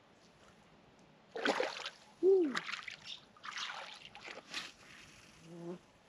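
Shallow water splashing and sloshing in several short bursts around hands releasing a small queenfish. About two seconds in, a short, loud tone rises and falls, and near the end there is a brief low hum.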